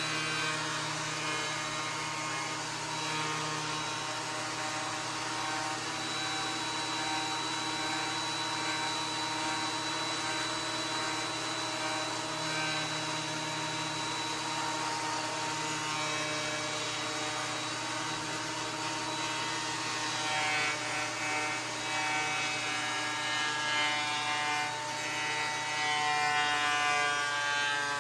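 Ridgid 13-inch thickness planer running with a steady, high motor whine; in the last several seconds the pitch wavers.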